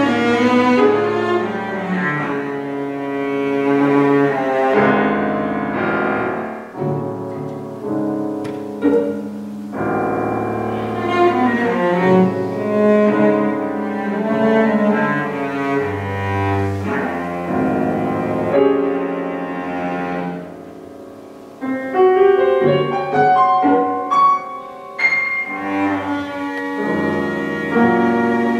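Cello and piano playing a classical duet live, a bowed cello line over piano accompaniment. About two-thirds of the way through, the music falls to a quieter stretch and then swells back.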